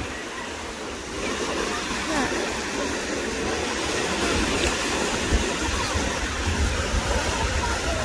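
Small North Sea waves breaking and washing up the beach: a steady rush of surf that grows a little louder about a second in. Faint voices of people in the water are heard underneath.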